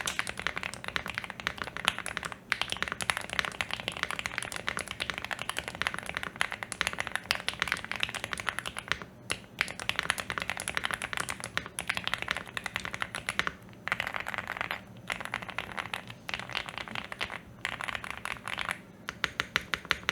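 Fast typing on a Bridge75 PLUS mechanical keyboard with stock Gateron Snow Rabbit switches, stock stabilizers and stock keycaps. Quick runs of key clacks are broken by brief pauses, with a few evenly spaced single keystrokes near the end.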